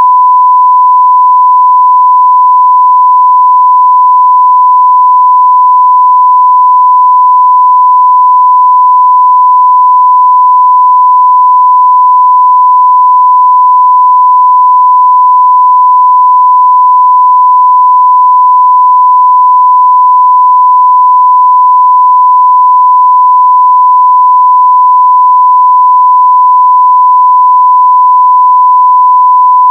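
1 kHz sine-wave audio test tone at full scale (0 dB): a single loud, pure, unchanging pitch.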